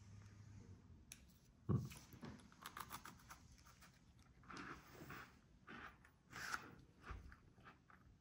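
Faint scattered clicks and short rustles, with one low bump a little under two seconds in: small handling and eating noises as a sweet-potato langue de chat biscuit is tasted.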